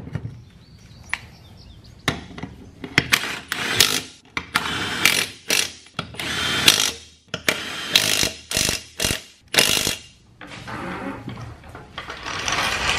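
Milwaukee Fuel cordless impact wrench hammering lug nuts onto a mower's wheel hub, in about ten short bursts between two and ten seconds in.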